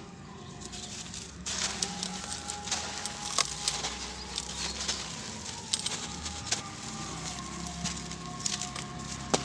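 Hands crushing and crumbling dry sand-cement lumps: a dense, gritty crunching with many sharp crackles and small cracks, starting about a second and a half in.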